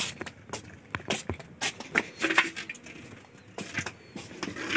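Irregular light knocks, clicks and clatter of household items such as a bucket being handled and moved, with footsteps.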